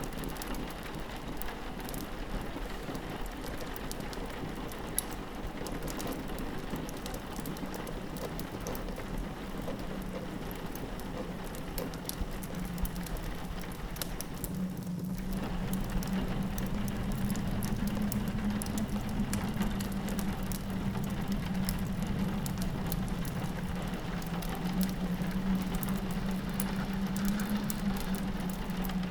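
Rain pattering steadily on a window, mixed with the scattered sharp pops of a crackling wood fire. Under them runs a low steady rumble that grows louder about halfway through.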